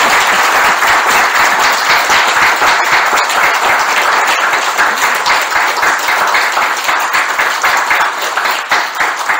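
Audience applauding: a sustained round of many hands clapping, thinning a little near the end.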